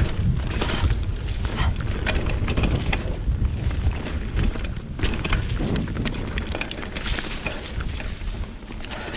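2020 Specialized Pitch mountain bike rolling down a leaf-covered dirt singletrack. Wind buffets the microphone in a steady low rumble, while the tyres crunch over dry leaves and the bike rattles and knocks over bumps.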